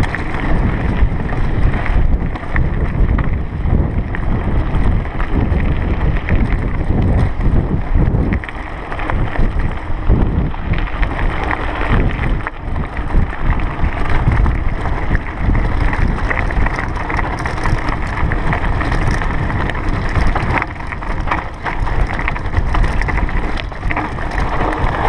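Mountain bike riding over a rough, rocky trail: steady wind noise on the camera microphone mixed with tyres crunching over loose stones and the bike rattling, with frequent jolts.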